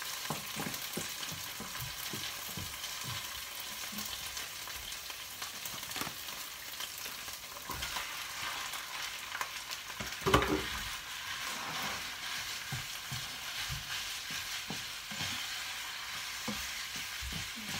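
Blended chilli and garlic sizzling in a frying pan while a spatula scrapes and taps against the pan; minced pork is tipped into the hot pan and stirred in, with one sharp, loud knock about ten seconds in.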